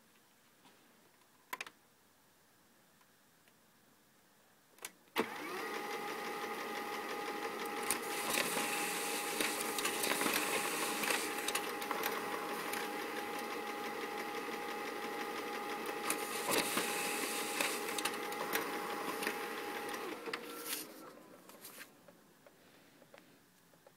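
Lexmark E260d monochrome laser printer printing a device statistics page: a couple of sharp clicks, then about five seconds in its motors and rollers start up and run steadily with a whine for about 15 seconds, winding down about 21 seconds in, followed by a few faint clicks.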